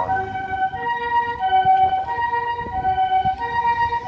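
Japanese railway level-crossing alarm sounding its electronic two-tone warning bell, switching back and forth between two pitches in an even rhythm, over a low rumble.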